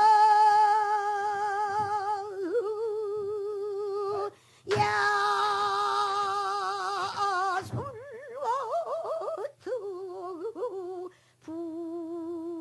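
Female pansori singer holding long, steady sung notes with a wide vibrato, with a short break about four seconds in and another near the end; the phrase before the second break wavers rapidly up and down in pitch.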